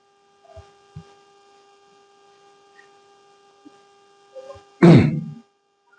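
Faint steady electrical hum with overtones, with two soft knocks about half a second and a second in. A short loud burst of a man's voice comes just before the five-second mark.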